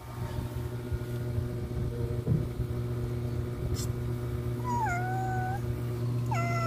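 A stray domestic cat meowing twice near the end: a drawn-out meow that falls in pitch and then holds, followed by a shorter falling one. A steady low hum runs underneath.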